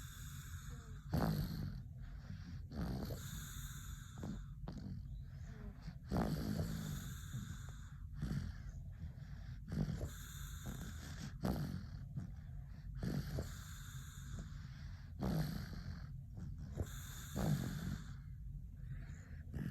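A father and child snoring in their sleep: low snores come every one and a half to two seconds, with hissing breaths in between.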